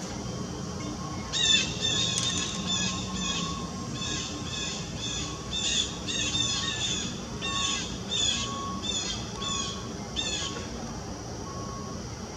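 A bird calling over and over: short, high, harsh calls in quick runs of about two or three a second, starting a second or so in and stopping a couple of seconds before the end.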